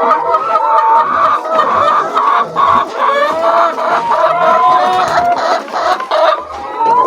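A flock of chickens clucking and calling, many birds at once in a continuous overlapping chorus.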